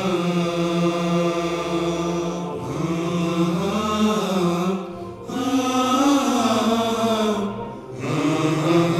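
Devotional chant-like singing: one voice holds long, wavering melodic notes in drawn-out phrases, broken by short pauses about five seconds in and again near the end.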